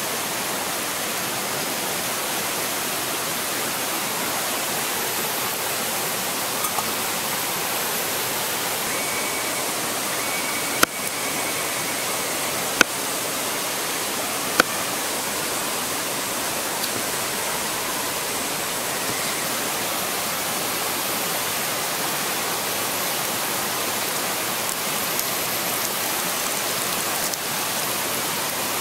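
River water rushing steadily. Near the middle, three sharp knocks about two seconds apart, a knife striking a wooden cutting board while slicing cucumber.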